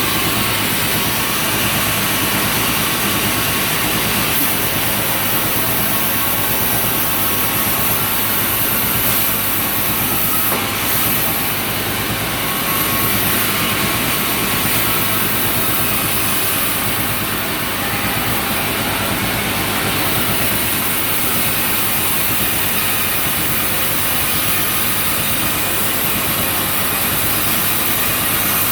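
Sawmill machinery running steadily: a loud, constant engine-like drone with a dense hiss over it.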